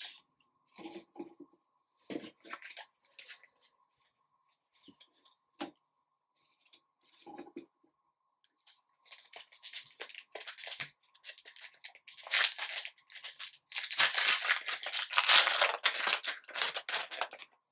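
Trading cards being handled and set down on a wooden table in scattered soft clicks and slides, then from about nine seconds in a foil Topps trading-card pack wrapper crinkling and tearing open, loudest near the end.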